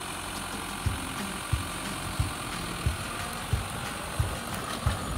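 Tractor engine running steadily while pulling an under-row weeding hoe through the soil, with a regular low thump about one and a half times a second.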